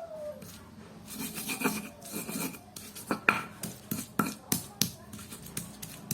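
A knife scraping and tapping on tilapia as the fish are cleaned, a run of irregular sharp scrapes and knocks that come faster in the second half.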